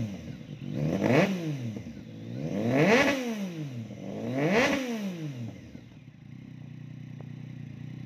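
Yamaha MT-09's 847 cc crossplane three-cylinder engine, breathing through an Akrapovic exhaust, revved three times in quick throttle blips. Each rises sharply and falls back. It then settles to a steady idle about six seconds in.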